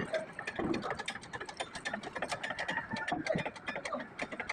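Rapid, irregular clicking and tapping, several clicks a second.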